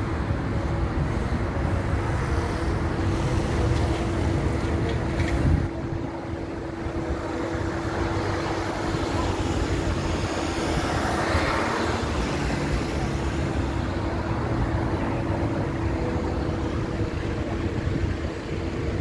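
Road traffic passing close by: a steady rumble of car engines and tyres with a constant hum. One vehicle swells past about eleven seconds in, and there is a brief knock about five seconds in.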